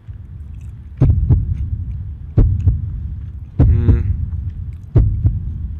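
Slow, deep heartbeat sound effect, a double thump about every 1.3 seconds, with a man's closed-mouth "mmh" as he chews midway through.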